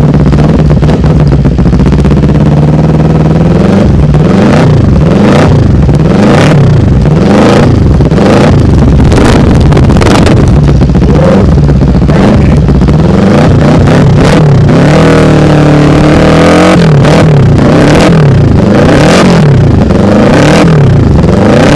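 Kawasaki Ninja 400 parallel-twin engine breathing through a Yoshimura aftermarket exhaust, idling for a few seconds and then revved up and let fall again over and over, a dozen or so quick blips of the throttle.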